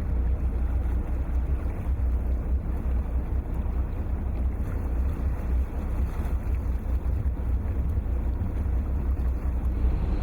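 Princess V39 motor cruiser under way: a steady low engine drone with rushing wind and water noise.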